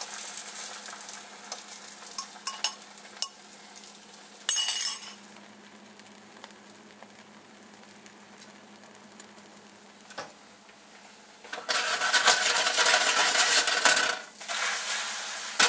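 Egg mixture sizzling in a hot cast-iron skillet, with a few clicks and a short loud scrape a few seconds in; the sizzle then goes quiet for several seconds. Near the end comes a louder stretch of scraping and rattling as the skillet is worked and shaken on the electric coil burner to loosen the omelet for flipping.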